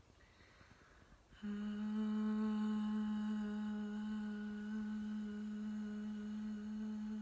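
A woman's voice holding one long, steady vowel tone on a single pitch, starting about a second and a half in after a quiet moment. This is meditative vowel toning of the kind used to prepare for birth.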